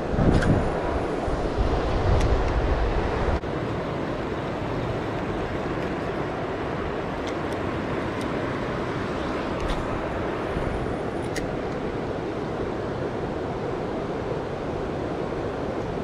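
Steady rushing of a shallow river current. A low rumble of wind on the microphone lies over it for the first three seconds or so and then cuts off, and a few faint clicks come later.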